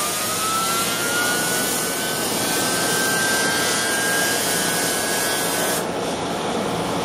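Homemade tin-can jet engine running on gas: a steady roar of burning gas and rushing air, with a thin whine that slowly rises in pitch as the turbine spins up. About six seconds in, the whine stops and the hissing top of the roar drops away.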